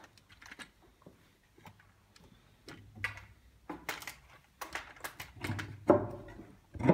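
Irregular clicks and knocks, scattered and uneven, with the loudest two near the end.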